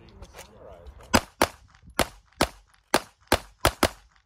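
Eight pistol shots fired in quick succession over about three seconds, the last few coming faster.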